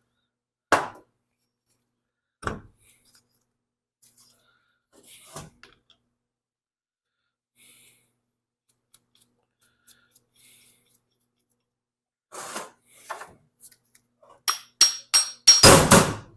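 Cast-iron lawn mower blade spindle being taken apart on a workbench: scattered single metal clunks and clinks, then a quick run of sharp metal knocks near the end.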